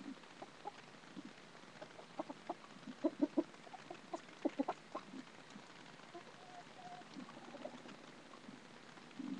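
Chickens clucking: short clucks scattered through, coming in a quick run from about two to five seconds in.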